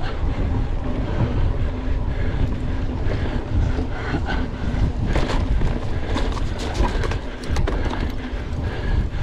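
Wind buffeting the microphone of a camera on a mountain bike ridden at race pace, with scattered sharp clicks and rattles from the bike over rough ground.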